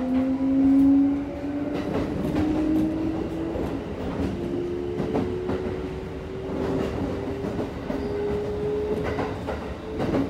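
Kintetsu 1233-series train's VC43 VVVF inverter and traction motors whining, the pitch rising slowly as the train accelerates, heard inside the passenger car. Wheels click over rail joints under a steady running rumble.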